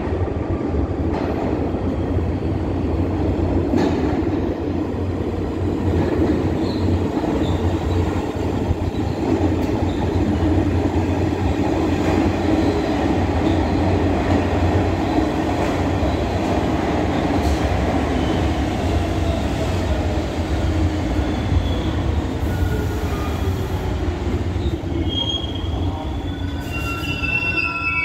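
R46 subway train pulling into the station: a steady rumble of wheels on rail and traction motors, with a whine that falls slowly in pitch as the train slows. Several high squeals sound as it brakes to a stop near the end.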